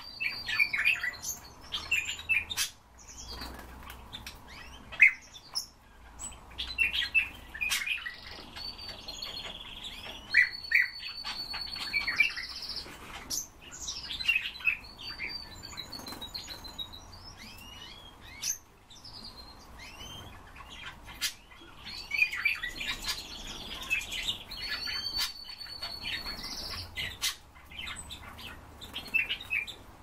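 Pet birds chirping and calling, with many short chirps in quick runs and a few held whistles. Occasional sharp taps come from around the cages and perches.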